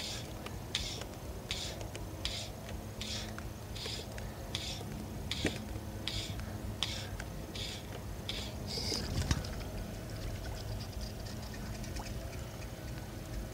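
Wet fly line being stripped in by hand, a short hiss on each pull about every three-quarters of a second, stopping about nine seconds in, followed by a single knock.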